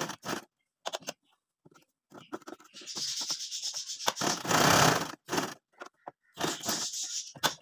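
Cloth rustling and rubbing as hands smooth and shift fabric under a sewing machine's presser foot, with small clicks, in uneven bursts, the longest from about two to five seconds in.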